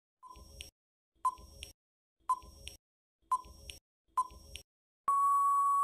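Countdown timer sound effect: five short beeps about a second apart, then one long steady beep near the end, signalling that time is up.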